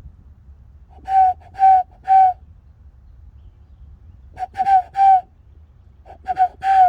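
A person whistling bird-call notes through cupped hands as a warm-up: three groups of about three short, hollow notes on one pitch. The last note of the final group is longer and slides down.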